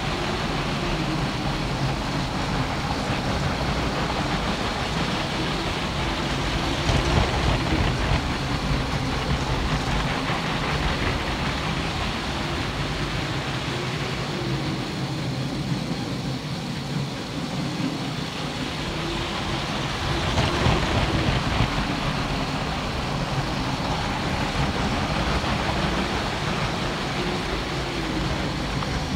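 Electric LEGO motors whirring as they drive a layout's Ferris wheel and trains: a steady mechanical drone with a wavering low hum, swelling louder about a quarter of the way in and again past halfway.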